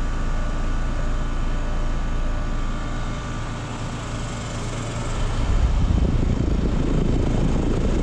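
Brand-new 5-ton Trane XR13 central air conditioner's outdoor unit running steadily: the compressor hum with a set of steady tones, under the rush of the GenTeq condenser fan. About five seconds in, a louder rough low rumble sets in as the fan's discharge air buffets the microphone above the top grille.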